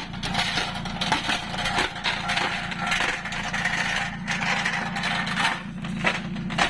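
An engine running steadily, with metallic clinking, knocking and scraping over it throughout.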